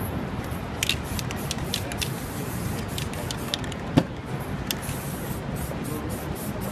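A series of short, sharp hisses over a steady background rumble, with one louder click about four seconds in.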